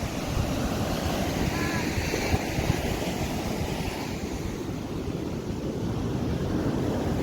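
Ocean surf breaking and washing against the shore, with wind buffeting the microphone.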